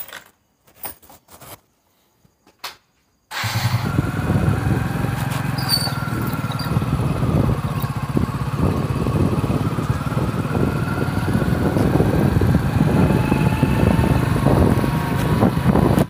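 A few short clicks at the motorcycle's ignition, then about three seconds in a Hero motorcycle's single-cylinder engine is heard running steadily as the bike is ridden.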